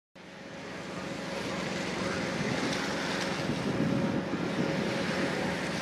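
A magnesium concrete hand float sweeping over wet concrete, against a steady engine-like hum and wind on the microphone. The sound fades in just after the start.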